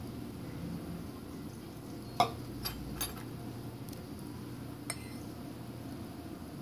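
A stainless steel milk-frothing pitcher knocks down onto a granite countertop with a short metallic ring, followed by a few lighter clinks of a spoon against metal and glass, over a faint steady low hum.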